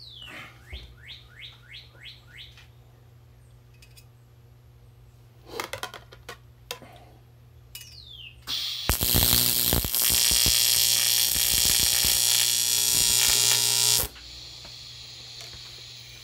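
TIG welding arc on thin aluminum intercooler pipe: a loud, steady buzzing hiss for about five seconds from a little past halfway, cutting off sharply, with a few clicks shortly before it. The arc is burning a hole through the thin tubing, which the welder puts down to the machine being set too high for such light material.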